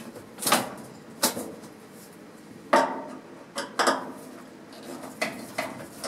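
Hands working at the top of a Whirlpool top-load washing machine while its screws are taken out: about half a dozen scattered clicks and knocks of parts being handled.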